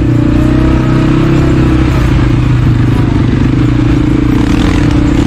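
Quad bike (ATV) engine running steadily at an even pitch, heard close up from the machine as it is ridden over a rough trail.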